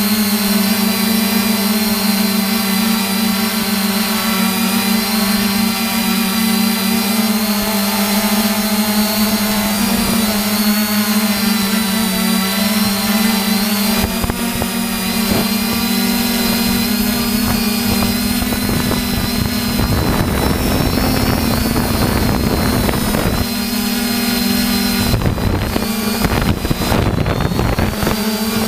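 Multirotor drone's electric motors and propellers whining steadily, heard from the drone's own onboard camera, a strong hum with higher steady tones above it. From about two-thirds of the way through, a rough low rumbling noise joins it.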